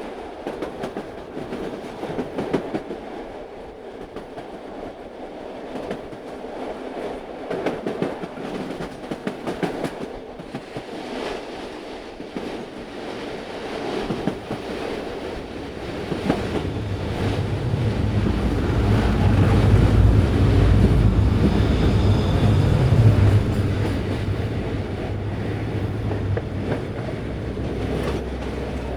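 Train running on rails, with wheels clicking rhythmically over the rail joints. A deep rumble builds about halfway through, is loudest a little after that, then eases off toward the end.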